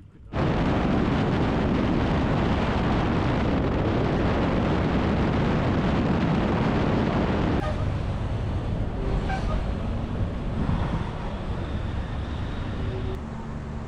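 Wind rushing over the microphone on a moving motorcycle, with road and engine noise underneath. It starts abruptly and eases a little about halfway through and again near the end.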